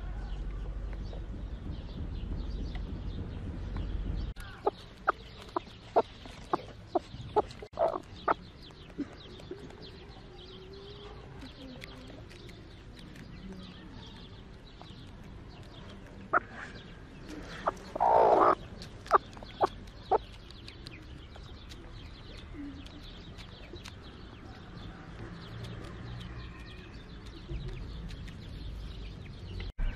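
Chickens clucking: a run of short, sharp clucks, then a louder cluster about halfway through with one longer, harsher call. A low rumble stops a few seconds in.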